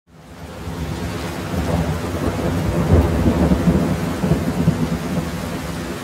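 Heavy rain falling steadily, fading in over the first second. A low rumble of thunder swells to its loudest around the middle.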